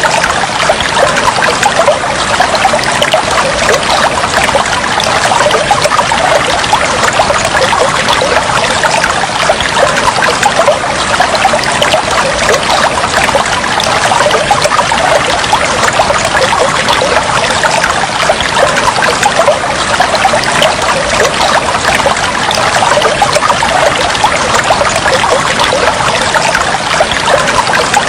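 Steady trickling, flowing water, a dense, unbroken babble of small splashes.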